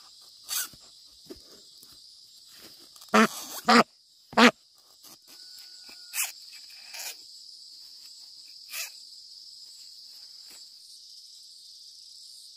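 Steady high-pitched chorus of crickets or similar insects, broken by a handful of short, loud animal calls, three of them close together about three to four and a half seconds in.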